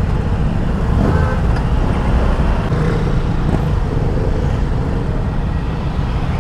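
Yamaha Mio Gear 125S scooter engine running steadily under way, with a heavy, even rumble of wind and road noise on the helmet-mounted microphone.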